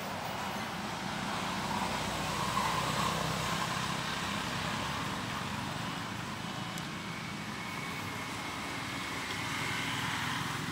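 A motor vehicle's engine hum, swelling about two to three seconds in and then easing off, over a steady outdoor hiss.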